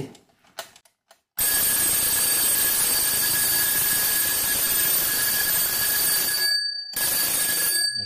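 Antique mechanical alarm clock's twin bells ringing loudly, the hammer striking them in a continuous rapid ring as the alarm trips at its set time. It starts about a second and a half in, breaks off briefly near the end, then stops.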